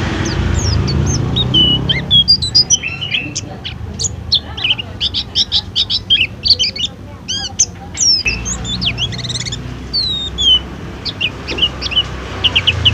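White-eye (pleci) singing a fast, varied song of high chirps, trills and down-slurred whistles, densest in the middle. A low rumble runs underneath, dropping away for a few seconds in the middle.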